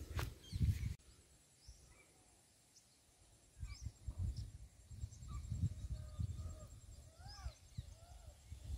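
Footsteps swishing through grass for about a second, then it cuts off abruptly. After a short near-silence, birds call faintly over a grassy field, short chirps over a low rumble of wind on the microphone.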